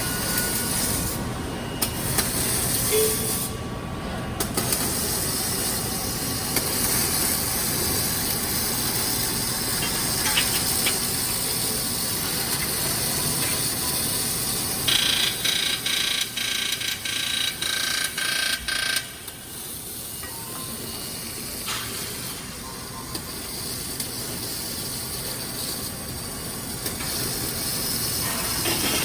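Welding on an automotive rear cross-member part, giving a steady loud hiss. From about halfway through, a stretch of a few seconds pulses on and off about twice a second.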